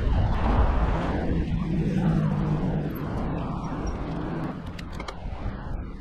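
Road traffic: cars passing on a main road, one swelling louder around the middle.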